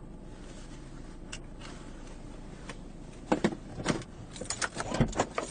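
Steady low vehicle rumble heard from inside a dashcam car. From about three seconds in comes an irregular run of sharp clicks and rattles, the loudest sounds here.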